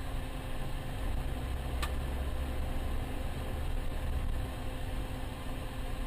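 Steady car engine and road noise of a moving car, a low rumble with a faint steady hum over it, and a single light tick about two seconds in.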